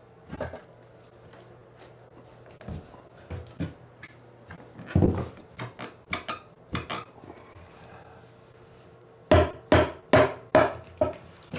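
Scattered knocks on wood, then a run of about six quick hammer blows near the end.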